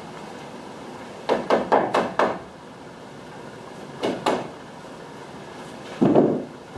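Nails being driven into wooden roof spars: a quick run of about four sharp knocks, two more a couple of seconds later, then a duller, longer thump near the end.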